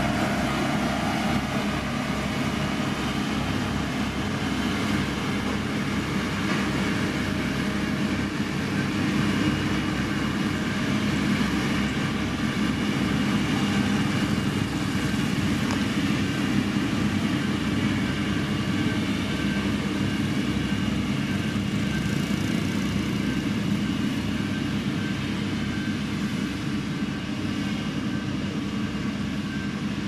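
Diesel engine of a heavy road-building machine running steadily under load, with a low, even engine pulse and a constant hum.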